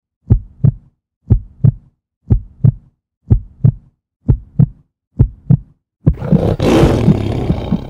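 Heartbeat sound effect: six double thumps, about one pair a second, over silence. About six seconds in, a sudden loud rushing burst of noise with a sharp crack comes in as the treasure chest's lid opens.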